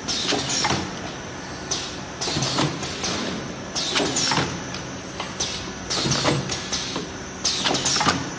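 Paper cake cup forming machine running in cycles: a steady hum with a burst of mechanical clatter and hiss about every two seconds as each PET-coated paper cup is pressed.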